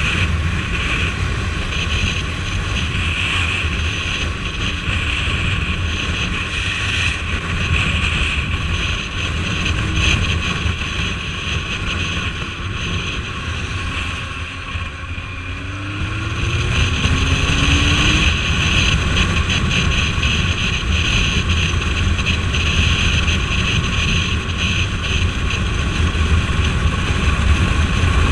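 Motorcycle riding at speed: wind buffeting the microphone over engine and road noise. Around the middle the sound eases briefly, then rises again with a short upward sweep in pitch as the engine pulls.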